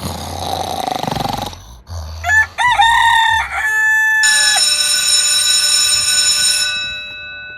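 Rooster crowing, its broken call ending in a held note about four seconds in. A bright ringing tone of several steady pitches follows and slowly fades out.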